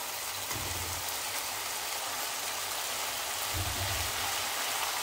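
Hot oil in a wok sizzling with a steady hiss as boiled rice is tipped in over sautéed garlic and spring onions, with a couple of dull low thumps.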